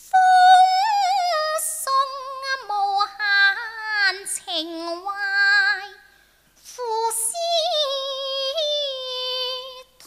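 A woman singing a Cantonese opera song (yuequ) in a high voice, holding long notes with wide vibrato and sliding pitch. She breaks off for a breath about six seconds in, then goes on.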